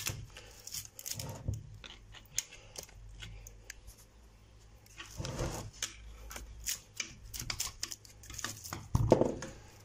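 Scattered clicks and rustling as sleeved lead wires are pulled out of a burnt electric motor's stator winding and handled, with a couple of louder scrapes about five seconds in and near the end.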